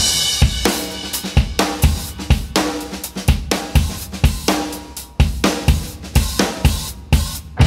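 Background music driven by a drum kit: a steady beat of snare, bass drum and cymbals at about two hits a second.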